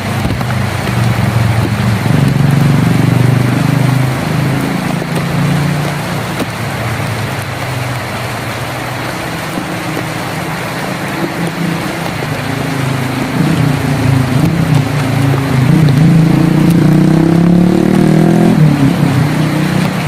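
Heavy rain drumming on a tin roof, with a low rumble underneath that rises in pitch toward the end.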